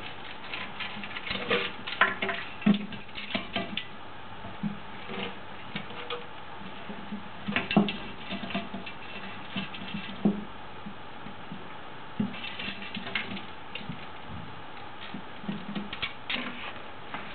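A cat pawing about in a porcelain washbasin: irregular small taps, clicks and scrapes of claws on the basin and plughole, with a few louder knocks.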